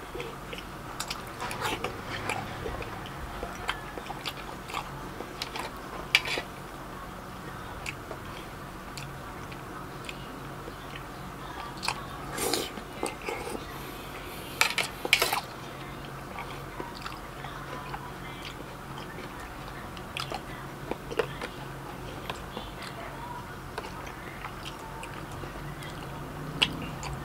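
Close-miked mouth sounds of a person eating a burger: wet chewing with scattered biting clicks. A few louder crunchy bites come about halfway through.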